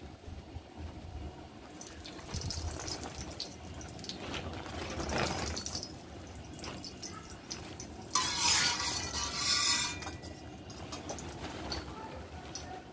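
Cooking oil poured from a steel tumbler onto a heated iron tawa and spread with a metal spatula, with a loud burst of sizzling about eight seconds in that lasts about two seconds.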